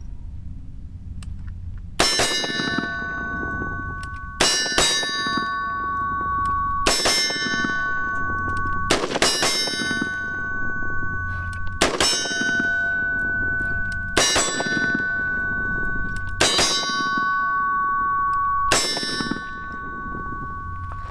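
AR-15 rifle fired slowly, about eight shots a couple of seconds apart. Each shot is followed by a steel target ringing with a bell-like tone that lasts until the next shot.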